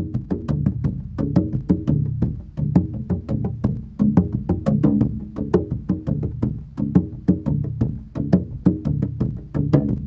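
Music: a quick, steady run of short notes over a low bass.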